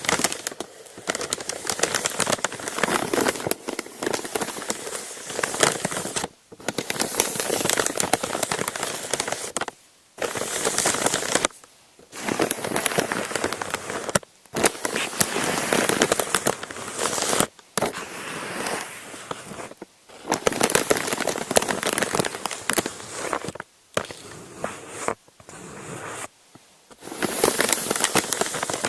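Parchment paper being crumpled and crinkled close to the microphone: dense crackling in bouts of a few seconds, with brief pauses between them.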